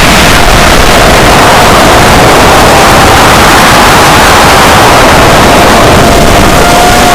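Heavy, distorted wind rush over an action camera on an FPV model aircraft in flight. The aircraft's motor whine sits faintly under it, fading out and coming back near the end.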